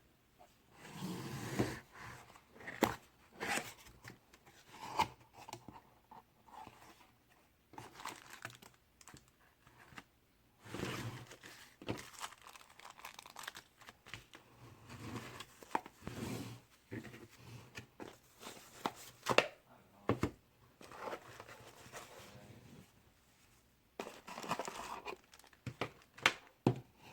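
Product packaging being opened and handled by hand: irregular noisy bursts, each a second or so long, with sharp clicks and taps in between.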